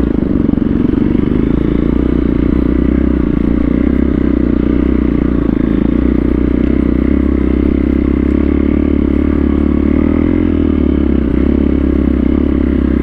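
Motorcycle engine running steadily at low, even speed on a slippery dirt trail, with a constant low rumble and no revving.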